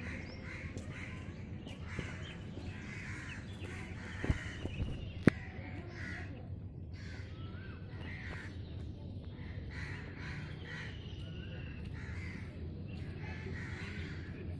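Crows cawing over and over, several calls overlapping at about one or two a second. Two sharp clicks stand out about four and five seconds in.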